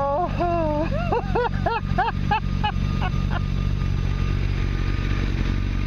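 A vehicle engine idling steadily. Over it, in the first three and a half seconds, comes a run of about nine short calls that each rise and fall in pitch, the first one long and the rest quickening to about three a second, with two faint ones near the end.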